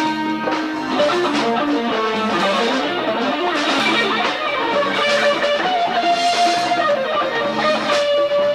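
Live band playing an instrumental passage: guitar carrying the melody with held and sliding notes, over bass guitar and drums.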